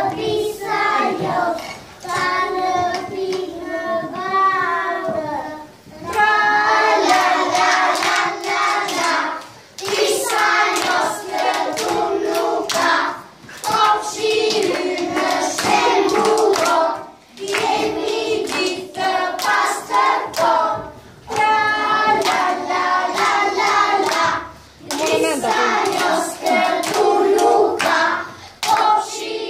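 A group of young children singing a song together, in phrases with short breaks every few seconds, while hands clap along to the beat.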